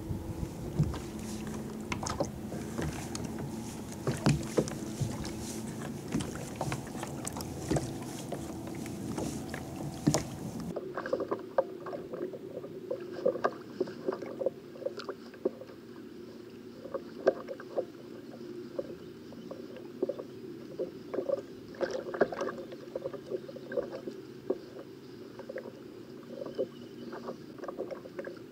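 Fishing kayak rocking on open sea: water slapping against the hull, with repeated short clicks as a conventional jigging reel is cranked and the rod worked.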